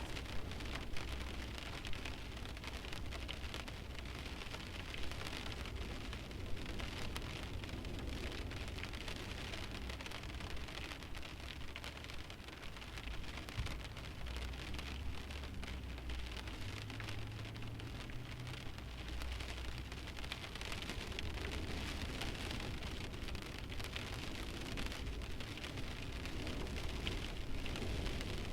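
Light rain falling on a parked car's windshield: a steady hiss of rain with many small drop ticks and a few heavier single drops in the first several seconds. No engine is running.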